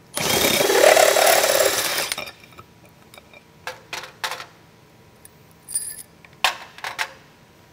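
Cordless power driver spinning up and running for about two seconds while backing out the screws that hold the cap on top of a car-wash brush core. Light clicks and knocks follow as the tool and parts are handled on the ladder.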